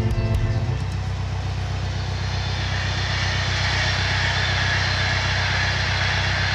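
Narrowboat engine running steadily underway, with a rushing noise that swells through the middle and end, fitting a train passing nearby. Background music ends about a second in.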